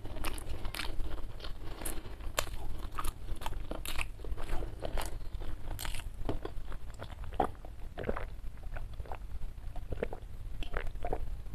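Close-miked mouth sounds of a person chewing and swallowing food, with many small wet clicks and smacks. In the second half the sounds are fewer and lower, as they come from gulping water from a plastic jug.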